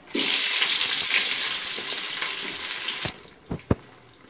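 Sliced onions hitting hot oil and ghee in a stainless steel pot and frying with a loud sizzle, which stops abruptly about three seconds in. Two short knocks follow near the end.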